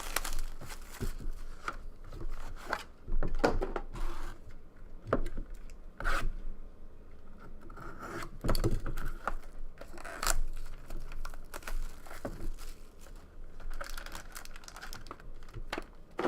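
A sealed trading-card box being opened: plastic shrink wrap torn and crinkled, with scattered crackles and knocks of cardboard being handled.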